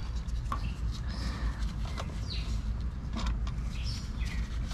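Faint clicks and taps of a throttle body and its mounting screws being handled and started by hand, over a steady low rumble, with a few short high chirps.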